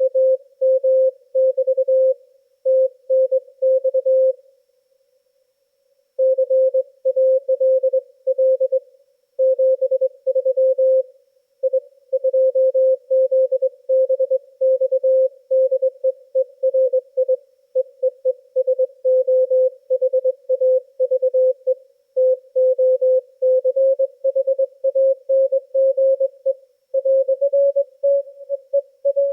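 Morse code (CW) signal received on a Yaesu FTdx10 transceiver: a single beat tone keyed on and off in dots and dashes, with almost no noise between the elements. It pauses for about a second and a half early on, and the pitch drifts slightly higher near the end.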